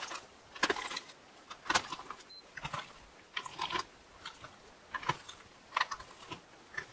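Scattered light clicks and short rattles of a graphics card and its small screws being handled by gloved hands during disassembly.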